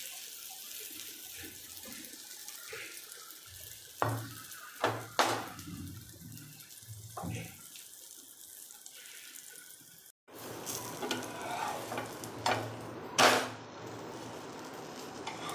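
Uttapam frying on a hot tawa griddle with a steady sizzle, and a few sharp clicks and scrapes of a metal spatula against the griddle. The sound cuts out briefly a little past the middle.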